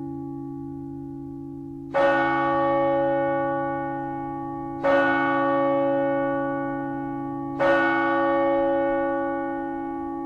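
A large bell struck three times, about three seconds apart, each stroke ringing on with a long, slowly fading hum that carries into the next.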